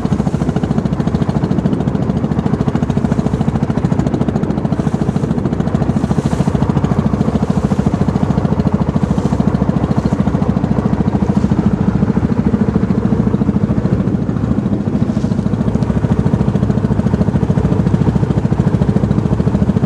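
A small boat's engine running steadily while underway, with a fast, even chug.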